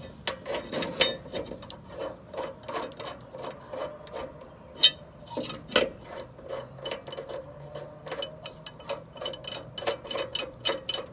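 Quick, irregular metal-on-metal clicking, several clicks a second with two louder clicks midway, as the blade bolt is turned by hand to thread a new high-lift blade onto a zero-turn mower's deck spindle.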